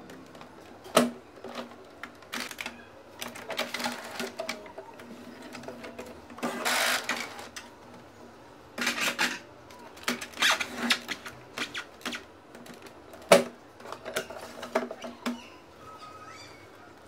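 Hard plastic clicks, knocks and rattles as the housing parts of an Epson ink tank printer are handled and fitted back together. The loudest is a single sharp knock about thirteen seconds in.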